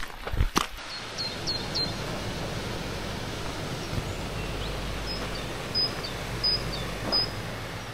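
Outdoor ambience: a steady noise with a low wind rumble on the microphone and a few knocks in the first half-second. Two runs of short high chirps sound over it, three about a second in and four more near the end.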